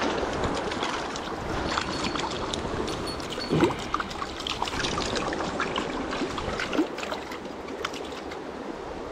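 Hooked fish thrashing and splashing in shallow stream water as it is grabbed by hand, over the steady rush of the stream. The loudest splash comes a little past three and a half seconds in, another just before seven seconds.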